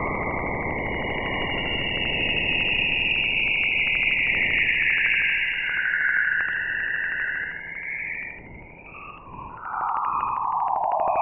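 Space recording played as sound: a hiss with wavering, gliding high whistling tones over it and a fast, even clicking. The hiss fades after about eight seconds, and a lower whistling glide swells near the end.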